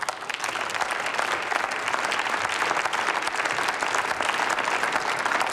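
Applause from many members of parliament: a dense, steady clapping.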